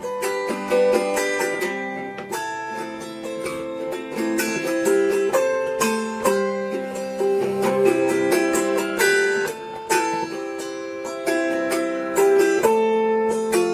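Instrumental music on plucked string instruments: a busy run of plucked notes with no singing.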